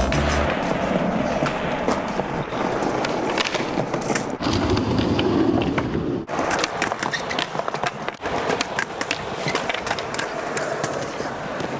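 Skateboard wheels rolling on rough asphalt, with sharp clacks and knocks of the board hitting the ground during tricks.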